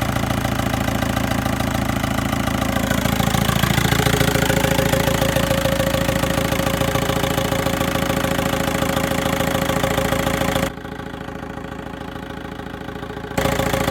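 VW 1.9 TDI diesel engine idling while the steering wheel is turned, with no squeal from the power steering or belt drive: the alternator's overrunning clutch pulley, the cause of the squeal, has just been replaced. Near the end the sound turns muffled and quieter for a few seconds, then comes back.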